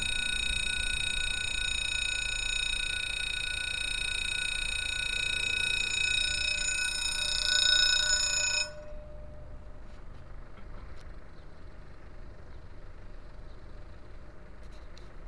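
Level-crossing warning bell ringing as a steady electronic tone while the barrier lowers, cutting off suddenly about nine seconds in once the barrier is down. A much quieter outdoor background follows.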